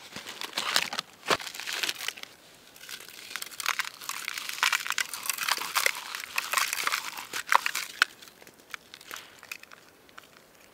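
Plastic granola bar wrapper crinkling as it is torn open, then crunchy granola bars crushed by hand with irregular crackling and crunching. The sound is busiest in the middle and thins out near the end.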